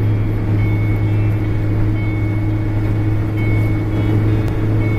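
Steady low drone of a car driving at an even speed, heard from inside the cabin: engine and road hum with a faint high whine that comes and goes.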